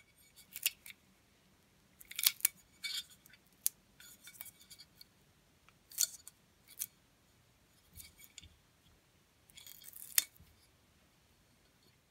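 A thin sheet-metal battery clamp being bent back into shape by hand: a string of short, sharp metallic clicks and scrapes with pauses between, about eight in all.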